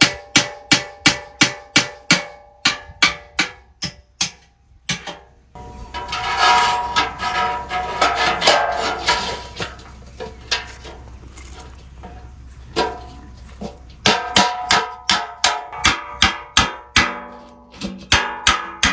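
Hammer blows on a steel bucket, about three a second, each strike leaving the bucket ringing. In the middle the hammering gives way to a denser clatter of metal rods knocking in the bucket, and near the end a second run of hammer blows follows.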